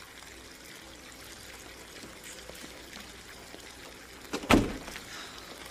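A bath tap running, a steady rush of water in the background. One sharp, loud thump near the end.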